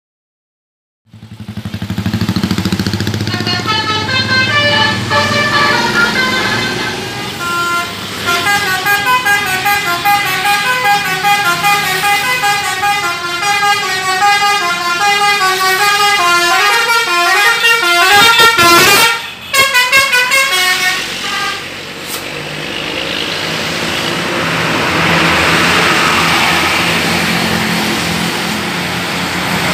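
Basuri multi-tone musical bus horn playing quick stepping tunes over and over, over the low hum of a bus engine. About two-thirds of the way through the horn stops, and the engine and road noise of a passing bus swell and fade.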